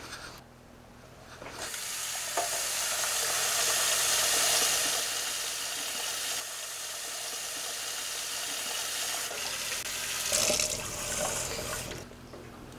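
Kitchen tap running water into a sink while a metal measuring cup is filled. The tap comes on about a second and a half in, runs steadily, and shuts off near the end.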